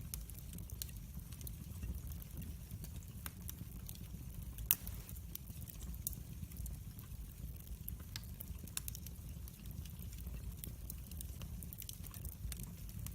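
Log fire burning in a fireplace: a low steady rumble of flames with scattered crackles and snaps, and one louder pop near the middle.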